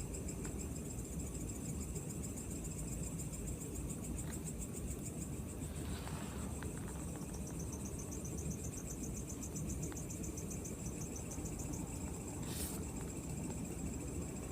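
Night insects, crickets among them, trilling steadily in a high, fast-pulsing chorus, one pulsing trill fading out about two thirds of the way through. Two brief soft noises come over it, near the middle and near the end.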